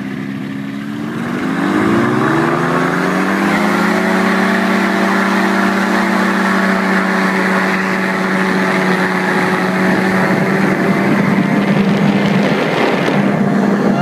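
Paramotor engine and propeller run up from idle to full power, the pitch rising about a second in, then held steady at high power for the takeoff run.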